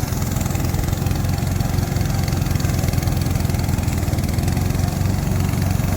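Gasoline engine of a remote-control lawn mower running steadily.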